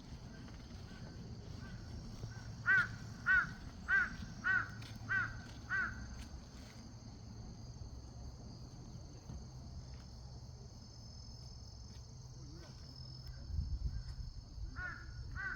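A crow cawing: a run of six caws about half a second apart, then another run starting near the end.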